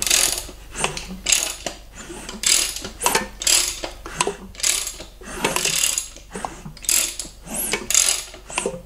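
Ratchet wrench on the crank turning an LS3 V8 over by hand, clicking in repeated strokes about twice a second. The engine is being rotated to centre the newly fitted rocker arms and trunnions before their bolts are torqued.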